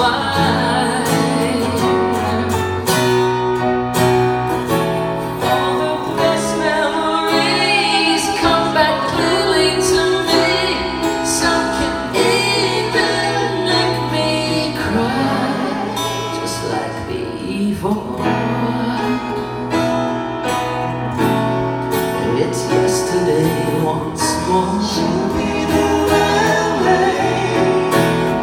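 Live music: a woman and a man singing into microphones, accompanied by strummed acoustic guitar.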